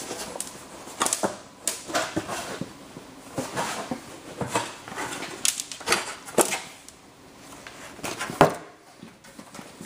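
Thin sheet-metal body panel being handled against a wooden buck: irregular flexing wobbles, rattles and clanks of the sheet. The loudest clank comes about eight and a half seconds in.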